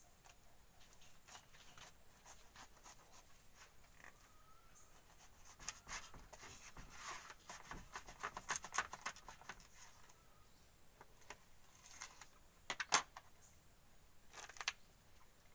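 Banana heart being peeled by hand: its tough outer bracts tear and crackle off in crisp, scratchy bursts, busiest from about five to nine seconds in. Near the end comes one sharp crack as the heart is split open.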